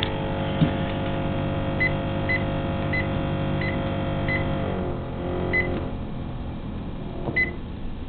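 GE refrigerator's evaporator fan buzzing steadily, the sound of ice buildup hitting the fan blades, while the control panel beeps seven times as the temperature is raised. About five seconds in, the buzz slides down in pitch and fades as the fan slows from high speed.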